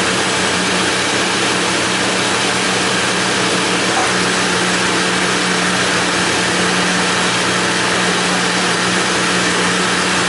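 Documation M600 punched card reader's blower running: a steady rush of air with a low, even motor hum.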